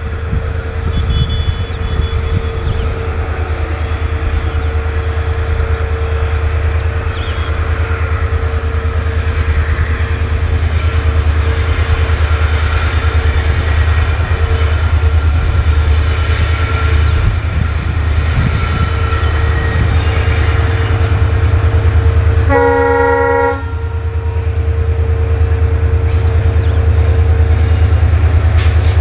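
Diesel locomotives of a freight train running with a heavy, steady low rumble. About 23 seconds in, a locomotive horn gives one short blast of about a second.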